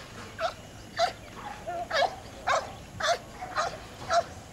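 Leashed police dog barking repeatedly at a decoy in a bite suit, about two sharp barks a second.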